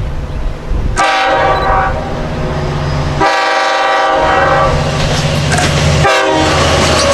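Metro-North train's air horn sounding three blasts, starting about one, three and six seconds in, over the steady low rumble of a passing train.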